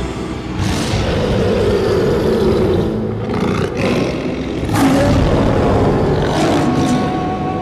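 Lion roaring: two long, rough roars, the second starting about four seconds after the first.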